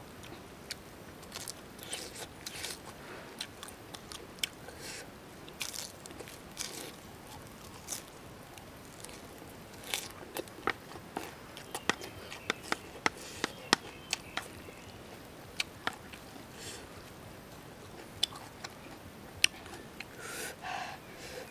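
Close-up mouth sounds of eating: crisp crunching of fresh lettuce leaves and chewing of noodles. The crunches are many short sharp snaps, coming thickest about halfway through.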